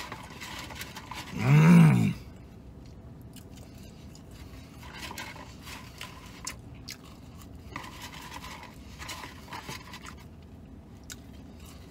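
A man chewing a mouthful of fried chicken finger, with faint wet mouth noises and small clicks. About a second and a half in comes one short loud vocal sound, its pitch rising and then falling.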